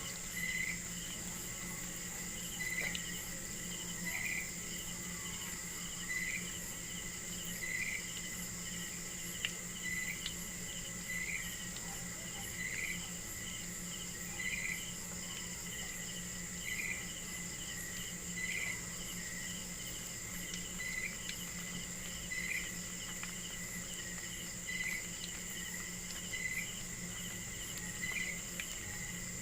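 Insects trilling steadily with a high, unbroken tone, while a short chirp repeats every couple of seconds over a low steady hum.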